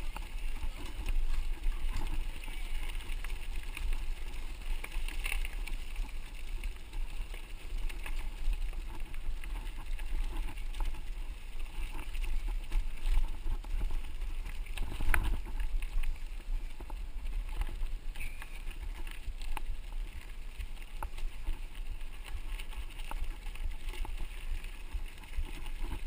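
Mountain bike rolling over a gravel dirt road, heard through a handlebar-mounted camera: a steady low rumble of tyres and vibration with scattered rattles and clicks from the bike, and one louder knock a little past halfway.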